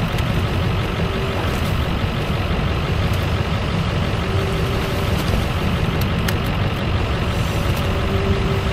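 Excavator's diesel engine and hydraulics running steadily as the bucket unloads wet pond mud into a steel dump-truck bed. There are a few sharp knocks about five to six seconds in.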